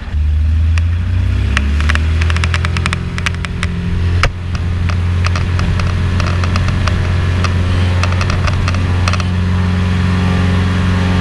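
A Cessna 180 ski plane's engine and propeller, heard from inside the cabin, coming up to full power for takeoff. The pitch rises over the first couple of seconds and then settles into a steady, loud drone as it climbs. Clicks and rattles run through most of it, with one sharp knock about four seconds in.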